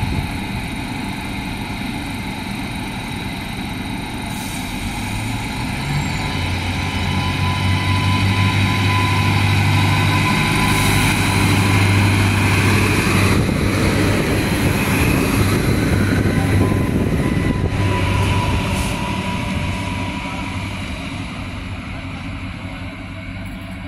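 3000/3100 class diesel railcar pulling away from the platform. Its low, steady engine note comes in about five seconds in and is loudest around the middle as the cars pass. It then fades away.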